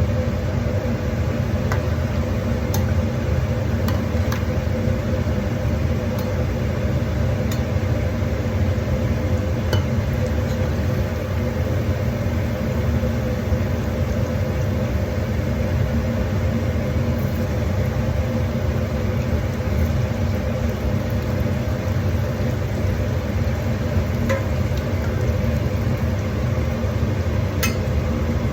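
A steady low machine hum, even throughout, with a few faint scattered clicks or crackles.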